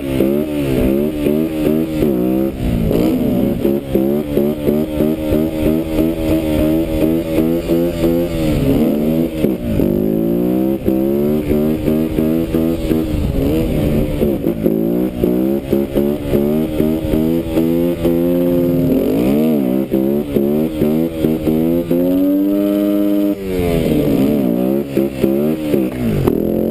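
Husqvarna TE 125's four-stroke single-cylinder engine revving hard over and over, the throttle opened and shut again and again so the pitch keeps climbing and falling, while the bike is ridden on its back wheel. Near the end the revs are held steady for a couple of seconds.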